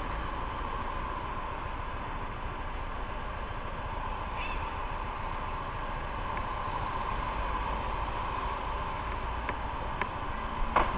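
Motorcycle on the move: steady engine and wind noise. Near the end there are a couple of sharp knocks.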